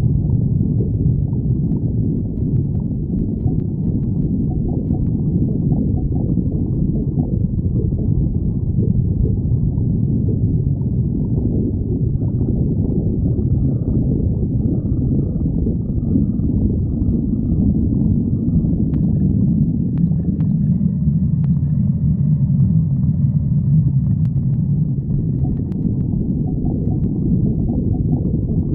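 A stomach growling in a continuous low rumble, with faint higher gurgling tones coming and going in the middle.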